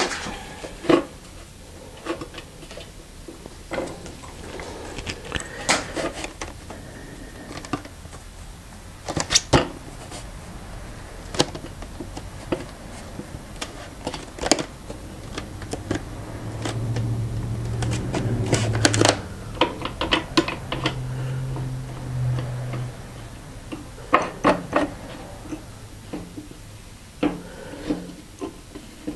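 Scattered clicks, taps and knocks of hands working a manual screen-printing press, pressing on and shifting a mesh screen to align it over a printed shirt. A low hum comes in for several seconds past the middle.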